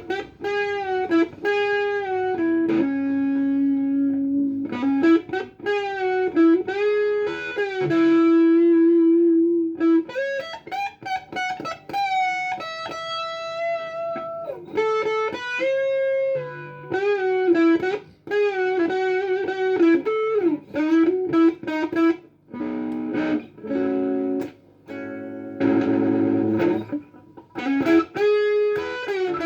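Electric guitar played through a Tiger Boost overdrive pedal, a Tube Screamer-style overdrive. It plays single-note lead lines with string bends and vibrato and a few long held notes, then a short run of chords about three-quarters of the way through.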